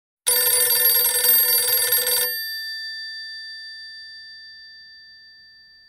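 Telephone bell ringing: one ring of about two seconds, and after it stops the bell's tone dies away slowly.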